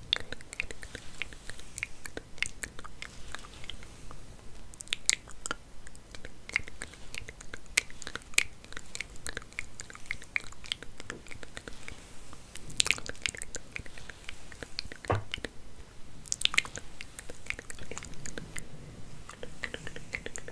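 Close-miked hair being combed and handled, a dense, irregular run of small crackles and scratches with a few louder ones.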